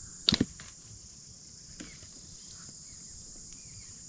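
Steady, high-pitched insect chirring, with a single sharp snap about a third of a second in and a fainter click a little later.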